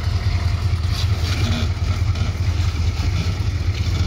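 Chevrolet K5 Blazer's 6.2-litre V8 diesel running steadily at low revs while the truck crawls down over a rock step.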